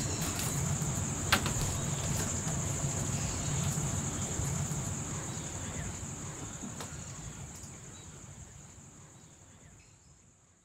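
Insects chirring in a steady high-pitched drone, with one sharp click about a second in; the sound fades out toward the end.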